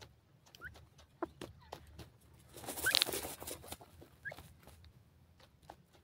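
Young teetar (francolins) scratching and pecking in dry, crumbly soil, with many small clicks and crackles of earth, and a few short rising chirps. Near the middle comes a louder rustle of feathers in the dirt with a high call over it.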